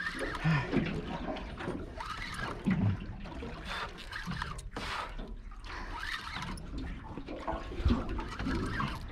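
Water lapping and sloshing against a small boat's hull, irregular and unsteady, with a few soft knocks.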